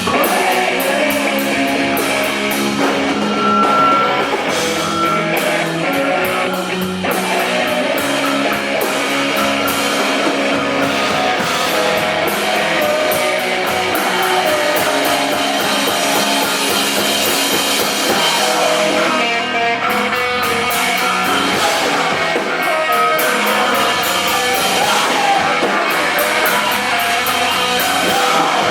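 Live math-rock/punk band playing loud and steady: distorted electric guitars over a drum kit, with cymbals struck in a steady rhythm.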